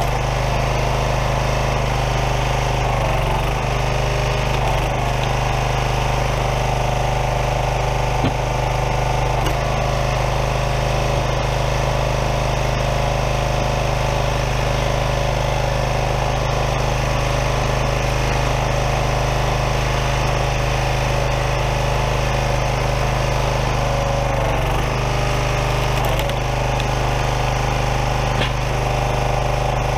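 Small gas engine of a Craftsman 27-ton log splitter running steadily, driving the hydraulic pump while the ram splits a large firewood round; its note dips briefly a few times.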